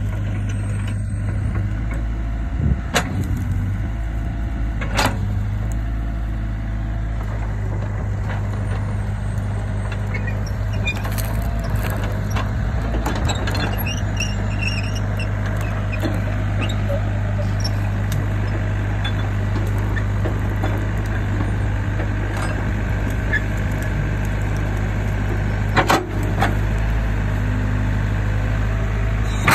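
Hyundai mini excavator's diesel engine running steadily as the machine works, with a few sharp knocks about three and five seconds in and again near the end.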